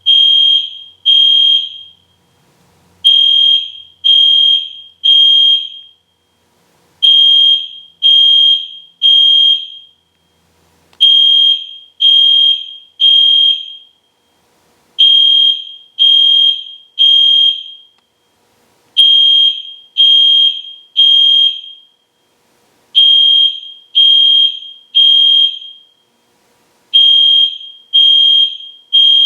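EST Genesis fire alarm horn sounding in the temporal-three evacuation pattern: three short, high-pitched blasts about a second apart, then a pause, the group repeating every four seconds.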